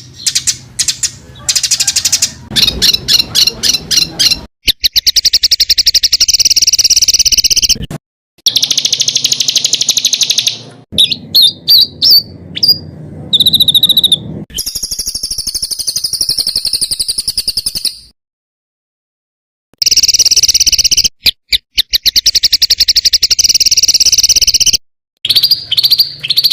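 A songbird's harsh, rapid-fire calls: long runs of fast repeated high notes, each run lasting a few seconds, broken by short pauses, with a brief silence about two-thirds of the way through.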